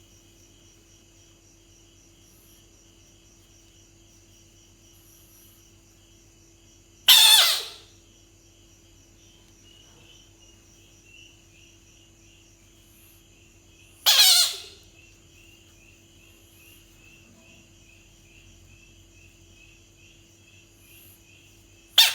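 Bullfrog calling three times, each call loud and under a second long, about seven seconds apart, the last one at the very end. Steady insect chirring runs underneath.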